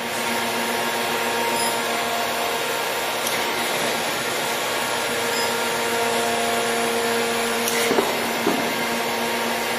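Gallmeyer & Livingston Grand Rapids 660 surface grinder running, its 14-inch wheel grinding a small steel part: a steady hiss over a humming machine drone. About eight seconds in there is a click, and one of the hum tones stops.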